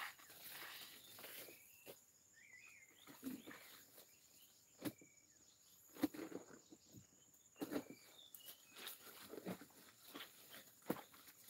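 Wet clothes being wrung and scrubbed by hand in a plastic tub of water: faint, irregular splashes and drips.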